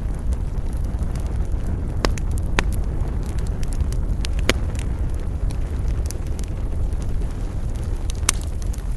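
Wood fire crackling in a fireplace: a steady low rumble of burning with scattered sharp pops and snaps, the strongest about halfway through and near the end.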